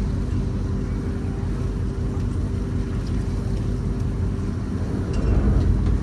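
A superyacht's engines running at docking speed, a steady low hum with a fixed drone. About five seconds in, a deeper rumble swells up briefly, as from a burst of power on the engines or thrusters.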